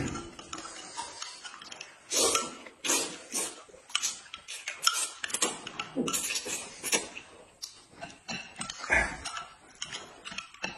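Close-up eating noises: noodles slurped up in irregular bursts and chewing, with a spoon clinking in a glass mug. A dull bump about nine seconds in.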